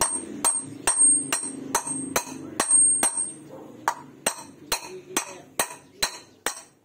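Hammer striking a 32 mm steel socket set on the outer ring of a new wheel bearing, driving the bearing into a motorcycle alloy wheel hub. A steady run of sharp metallic blows, about two a second, with a high ring after each in the first few seconds and a short pause near the middle.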